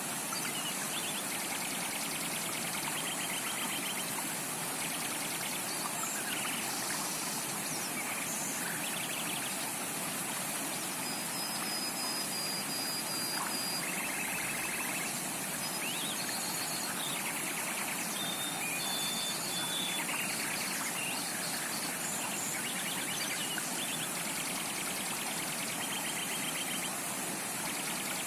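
Stream running steadily, with scattered short chirps and trills from birds and a couple of thin high whistles near the middle.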